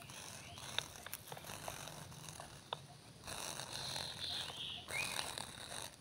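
Clear plastic bag crinkling and rustling as it is handled over grass, with sharp crackles throughout and a louder stretch in the second half.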